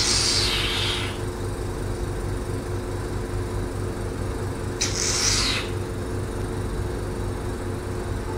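Facial machine's vacuum suction pump humming steadily under the microdermabrasion handpiece, with two short hisses of air, one at the start and one about five seconds in.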